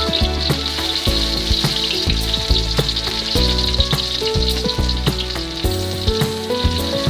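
Food frying in hot oil in a pan, a steady sizzle with crackles, under background music with a moving bass line.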